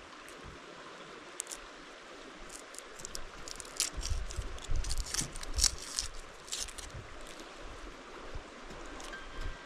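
Cutting and peeling a red onion by hand on a wooden board: crisp crackles of the papery skin and knife taps on the board, mostly through the middle, with a few low thuds. A creek runs steadily underneath.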